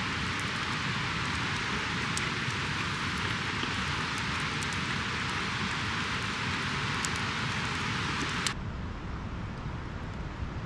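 Wood fire burning in an open fire pit, a steady hiss with scattered sharp crackles. About two-thirds of the way through it cuts off abruptly to a quieter, low outdoor rumble.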